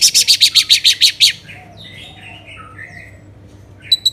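Orange-headed thrush (anis merah) singing: a fast run of about a dozen high notes over the first second or so, then softer chirps, and a new burst of song starting just before the end.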